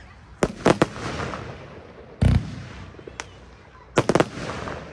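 Röder Kunterbunt 30 mm fan cake firing: two quick clusters of three sharp bangs, about half a second in and again at about four seconds, with a deep thump a little after two seconds.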